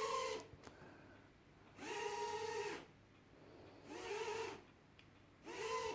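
Domestic cat meowing repeatedly: four drawn-out calls, about one every two seconds, each rising and falling gently in pitch.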